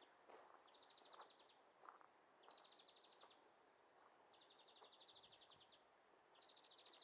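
Near-silent outdoor ambience with a faint, high, rapid trill repeated every second or two, each trill lasting under a second.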